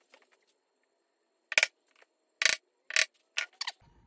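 A handful of sharp clicks and knocks, starting about a second and a half in and coming roughly every half second, from metal tools and parts being picked up and set down on a wooden workbench. Near the end a low rumble of handling noise sets in.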